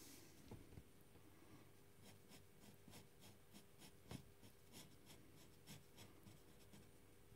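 Faint, quick scratching strokes of a colouring pen tip on paper, about four strokes a second.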